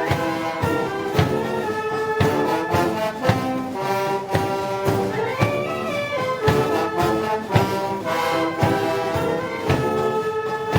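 Brass band playing Moros y Cristianos festival music: trumpets and trombones carrying held, full chords over a steady drum beat about twice a second.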